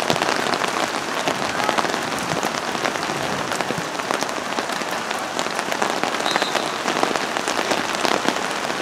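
Steady rain falling, with many small, sharp drop ticks close to the microphone.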